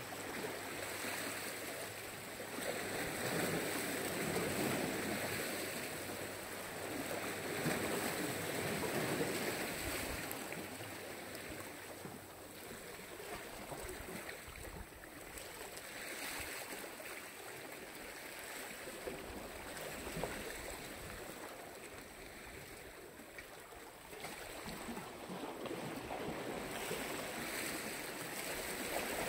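Black Sea waves washing ashore, a steady rush of water that swells and ebbs every few seconds.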